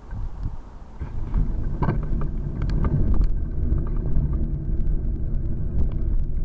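Low rumble of a motor vehicle close by, coming in about a second in and holding steady, with a few short clicks and knocks over it.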